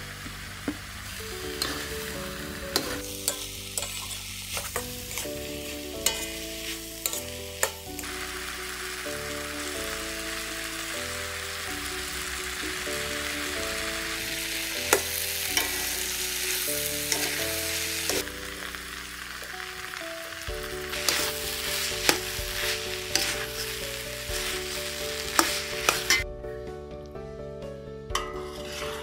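Vegetable filling sizzling in oil in a pan as it is stirred, with a spatula knocking and scraping against the pan now and then. The sizzle cuts out near the end. Soft background music plays throughout.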